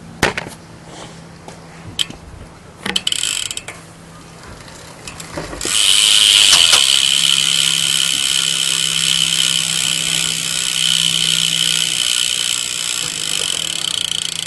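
Stock rear hub of a Fit TRL BMX bike freewheeling: its pawls click so fast that they make a loud, steady ratcheting buzz as the back wheel spins, which the owner calls pretty loud. A few separate clicks come first, and the full buzz starts about six seconds in.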